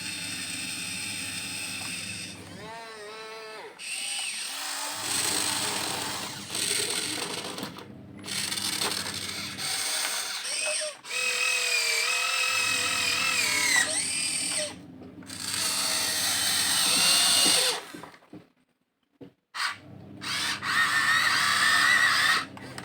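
Huina 1592 RC excavator's small electric motors and gearboxes whining as it digs, in stretches that stop and start, the pitch sliding up and down with the load. The whine cuts out for about a second near the end, then starts again.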